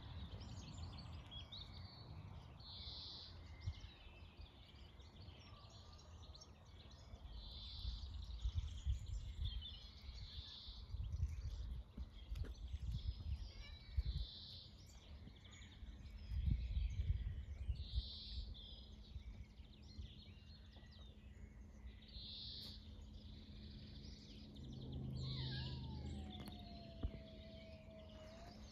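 A small songbird repeating a short, high song phrase every few seconds, over bursts of low rumble from wind on the microphone.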